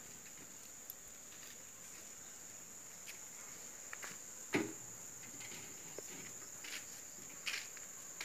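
Steady high chirring of insects throughout, with a clunk about four and a half seconds in as an aluminium pot of milk is set down on a tin-can charcoal stove. A few light taps follow as the milk is stirred with a wooden spoon.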